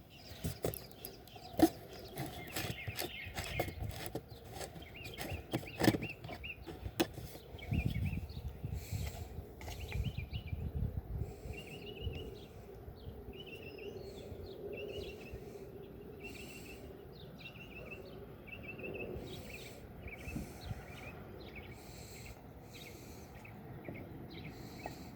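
Sharp clicks and knocks of things being handled, the loudest about a second and a half and six seconds in. Partway through, a bird starts chirping repeatedly in short high calls about once a second.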